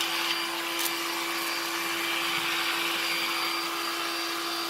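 Black+Decker 20V Max cordless stick vacuum running steadily on its low power setting with the brush roll on: an even motor hum with one clear tone over a hiss of rushing air. A faint click comes about a second in.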